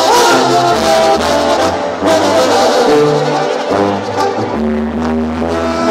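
Live banda sinaloense music: the brass section of trumpets and trombones playing held chords that change every half second or so, over low sustained bass notes.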